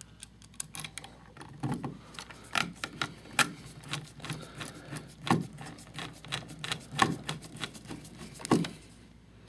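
Screwdriver driving a light switch's mounting screw into its wall box: an irregular run of small clicks and scrapes of metal on metal, with a few louder clicks.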